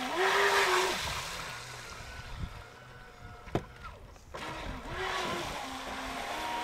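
Electric RC jet boat running on a 6S LiPo battery, its motor whine rising and falling with the throttle over the hiss of the water jet and spray, loudest in the first second. A single sharp click about three and a half seconds in.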